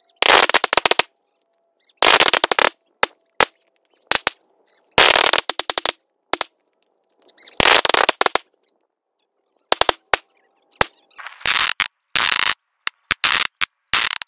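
Several rifles fired at once by a line of shooters: quick strings of shots, several rounds each, repeating every two to three seconds, with scattered single shots in between.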